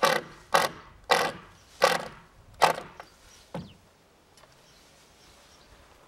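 Cordless drill driving screws into wood in six short bursts spaced well under a second apart, the last one shorter and weaker.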